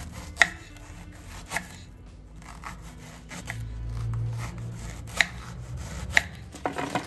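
Kitchen knife slicing through a raw green banana on a wooden cutting board, each cut ending in a sharp knock of the blade on the board, about half a dozen cuts at irregular intervals of roughly a second.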